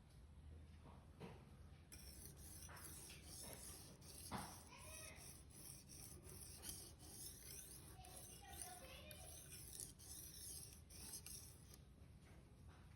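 Faint scraping of a Victorinox knife blade being stroked again and again across a sharpener. The hissing rasp starts about two seconds in and stops near the end.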